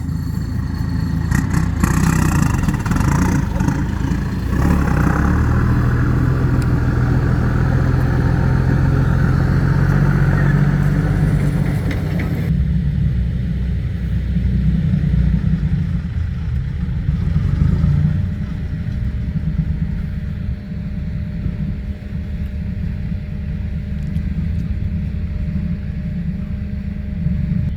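Dump truck's diesel engine running as the truck drives off, a steady low drone throughout; about halfway through the higher hiss drops away and only the low engine sound remains.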